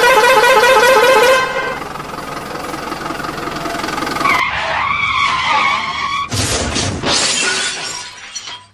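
Vehicle sound effects: a loud truck-horn blast with a wavering pitch, then steady engine noise, a wavering screech about halfway through, and a rough noisy burst that fades out near the end.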